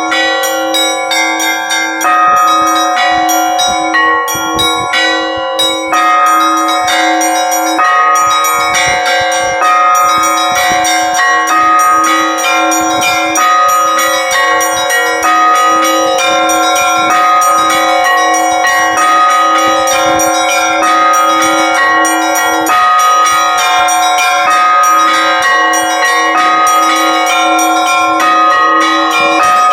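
Russian Orthodox church bells chimed by a bell-ringer (zvon): quick, dense strikes on the small bells over the ringing middle bells, with a lower bell struck in a steady beat about twice a second.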